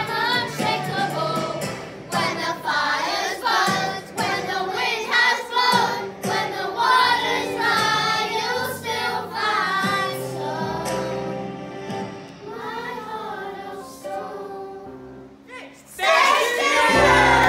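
A group of children singing a song together. About a second and a half before the end it cuts abruptly to louder music.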